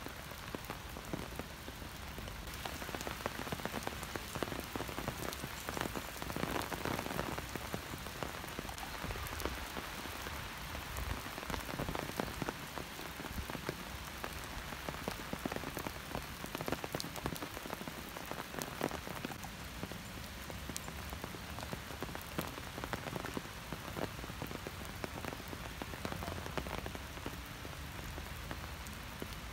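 Steady rain falling, an even hiss with many small, sharp drop taps close by.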